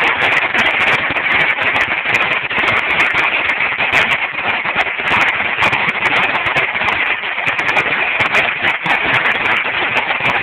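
A Dominator 16,000-shot firecracker strip going off in a rapid, unbroken string of small bangs that never pauses.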